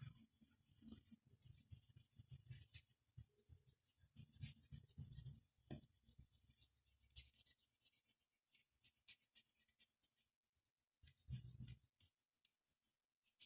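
Faint scratching and rubbing of a drawing tool on paper in short, irregular strokes, with a few soft bumps of handling.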